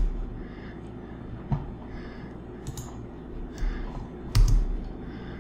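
A few separate clicks and taps of a computer keyboard and mouse, spaced roughly a second apart, with a heavier thump of a key about four seconds in, over a faint steady room hum.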